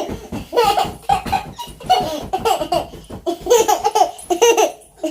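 Toddlers laughing in repeated bursts during play.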